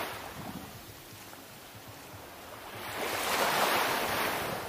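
Small waves washing onto a sandy shore: a hiss that swells about three seconds in and fades away near the end.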